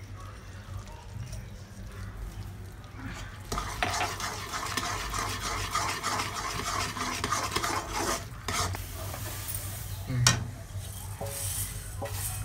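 A perforated steel ladle stirs and scrapes thick, bubbling jaggery syrup in a metal kadhai, with a light sizzle. The stirring picks up about three and a half seconds in, and there is a sharp metal clank about ten seconds in.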